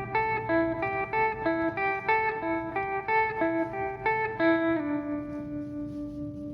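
Instrumental break in background music: a guitar picking a quick repeating pattern of single notes, about three a second, then settling on one low note left to ring and fade.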